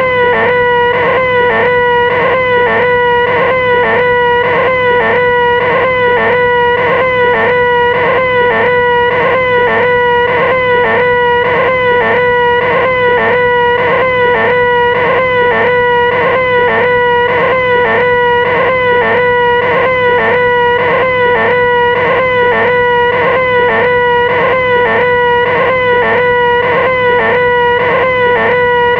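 A loud vocal 'ahh' wail held on one high pitch without a break, wavering regularly a few times a second: the 'most annoying sound in the world' scream, looped.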